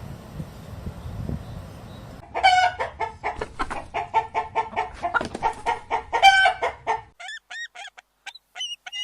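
Chickens clucking in a fast run of short calls, starting about two seconds in. After an abrupt cut near seven seconds, short high chirping calls that glide in pitch follow.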